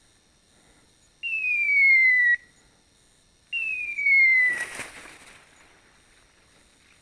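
Two falling electronic whistle tones from a hunting dog's beeper collar, each about a second long and starting and stopping abruptly, the second followed by a brief rush of noise.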